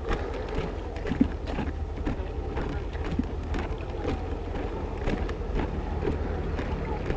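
Small single-cylinder alkon-type engine running steadily with a low rumble, with scattered light clicks and knocks over it.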